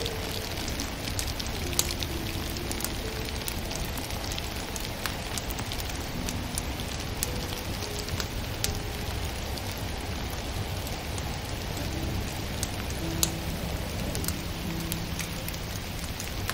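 Wood fire crackling in a stove, with sharp pops every few seconds over a steady, rain-like hiss of ambient noise. Faint, slow, sustained music notes sit underneath.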